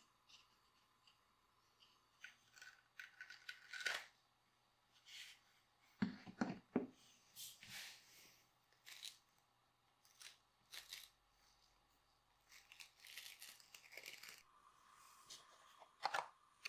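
A stiff, dried plaster-bandage foot cast crackling and crunching as it is handled, in scattered short bursts, with a couple of louder knocks about six seconds in.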